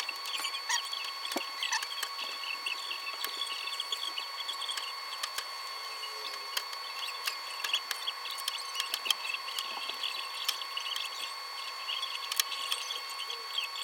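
Paintless dent repair work on a car panel: many scattered light clicks, taps and small squeaks of the tools against the metal, over a steady high-pitched electrical whine.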